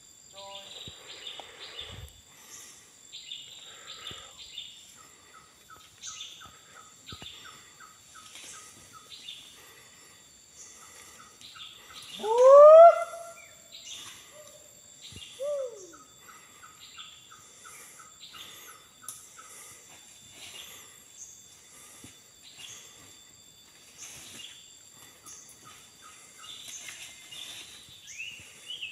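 Forest birds calling and chirping, one of them repeating a fast run of short notes, over a steady high insect drone. About twelve seconds in comes a loud rising whoop, the loudest sound here, and a shorter falling call follows a few seconds later.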